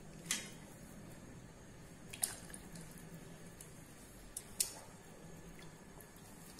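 Raw chicken pieces being placed with metal tongs into a pot of water: four short splashes and clicks, the sharpest just after four and a half seconds.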